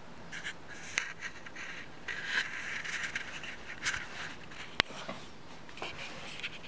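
Handling noise: soft rustling and scraping with scattered light clicks, and one sharp click a little under five seconds in.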